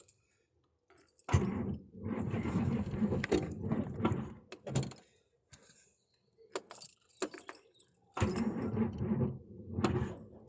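Humber Super Snipe's engine turning over on the starter motor in two bursts of cranking, the first about three and a half seconds long and the second about two, without catching.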